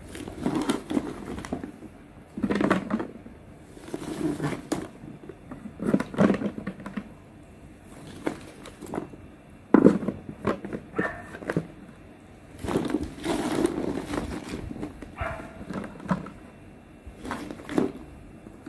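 Vegetables for mixed pickles (peppers, gherkins, carrots, small melons) being packed by hand into a large jar: irregular knocks, clunks and rustles as pieces are dropped in and pressed down.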